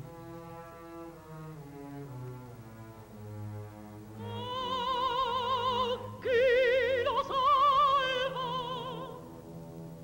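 Orchestra with low strings playing for a few seconds, then an operatic mezzo-soprano comes in over it about four seconds in, singing long held notes with a wide vibrato and a brief break in the middle.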